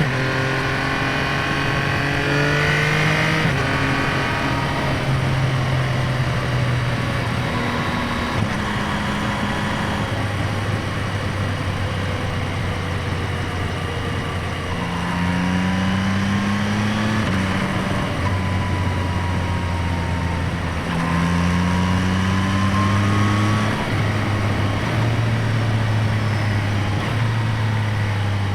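2025 Yamaha MT-09's 890 cc inline-three engine running, heard through its air box intake and exhaust. The note holds fairly steady, then rises slowly twice in the second half, each rise ending in a short drop in pitch.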